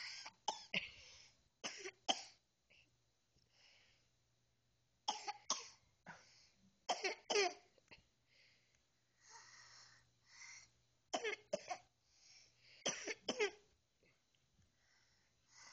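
A young child coughing in short bouts of two or three coughs every few seconds, with fainter wheezy breaths between the bouts.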